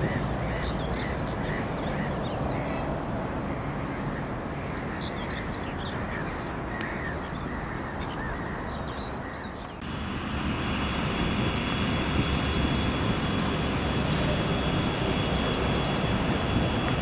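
Small birds chirping repeatedly over a steady outdoor rush. About ten seconds in, the sound changes abruptly to the steady drone of a TU7A narrow-gauge diesel locomotive's engine approaching, with a faint high whine.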